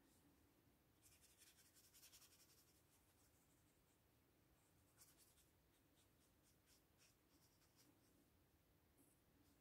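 Very faint scratching of a watercolour brush stroking across paper, in a cluster of short strokes after about a second and another about halfway through.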